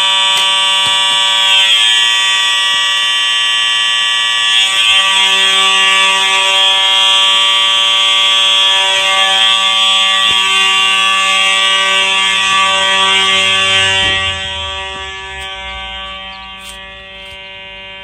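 Simplex fire alarm horns, among them white 4903 horn/strobes (one electromechanical, one electronic) running on filtered DC, sounding a steady, unbroken buzzing horn tone after the pull station has been pulled. About 14 seconds in it becomes quieter, heard from outside the building.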